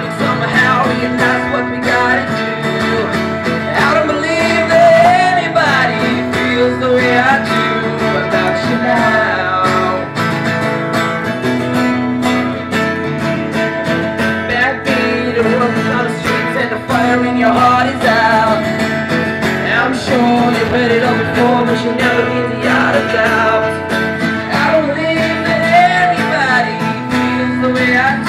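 A boy singing live into a microphone while strumming an acoustic guitar.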